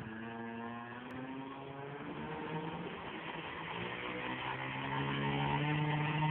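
RC model airplane engine running on the ground, its pitch stepping up and down with the throttle and growing louder toward the end.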